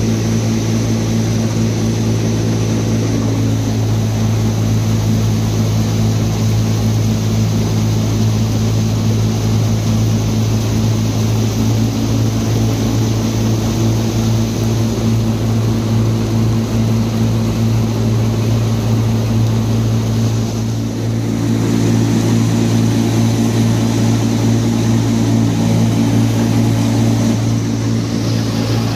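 Tractor-driven Punni back-to-back multi-crop thresher running steadily under load, a constant engine and drum drone with a strong low hum. It dips briefly about two-thirds of the way through, then runs a little louder.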